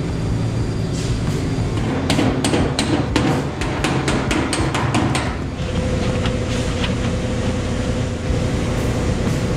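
A run of about fifteen quick hammer blows on the steel rear body panel, about five a second, starting about two seconds in and stopping after about three seconds, over background music.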